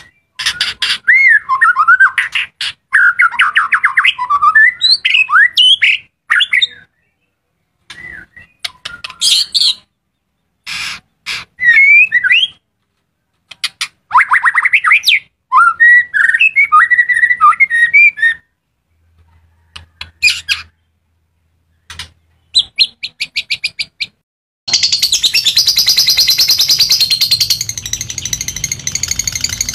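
Songbird singing loud, varied phrases of fast whistles, trills and chirps in bouts with silent pauses between them. About 25 seconds in, a dense, continuous high chattering starts and keeps on.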